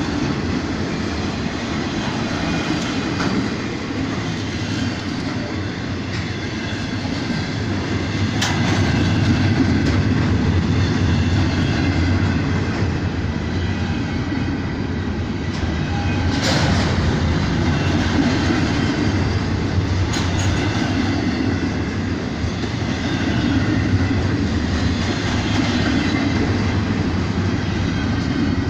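Freight train rolling past: a steady rumble and rattle of wheels on rail, with two sharp clicks partway through.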